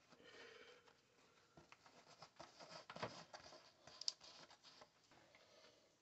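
Near silence, with faint rustling and a few small clicks of fingers handling and pressing on a plastic RC truck body.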